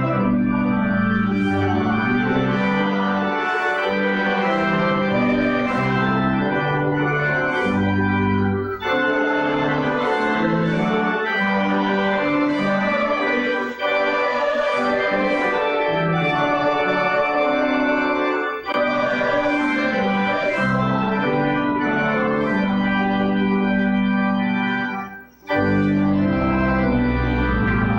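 Organ playing slow, sustained chords, broken by short pauses between phrases, the longest of them a few seconds before the end.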